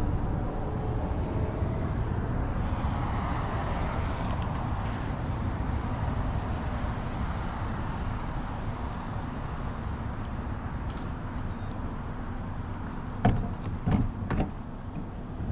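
Steady low rumbling noise, with three or four sharp knocks near the end.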